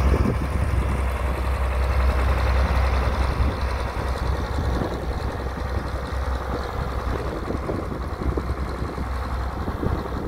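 John Deere 4020 tractor's six-cylinder engine working under load as it pulls a three-bottom plow through the soil. It grows steadily fainter as the tractor moves away.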